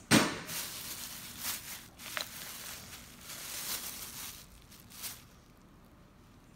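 Thin plastic bag rustling and crinkling as it is handled and pulled open, in irregular bursts, loudest at the start and dying down near the end.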